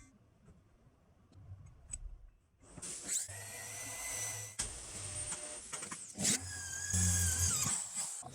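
A small power tool's electric motor starts about three seconds in and runs with a high whine. Its pitch sags briefly as it is loaded, and there is a sharp click partway through. Before it starts there are only a few faint clicks.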